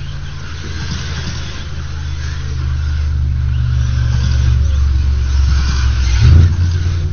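Electric RC buggies racing on a dirt track under a heavy low rumble that grows steadily louder. There is a brief louder jolt about six seconds in.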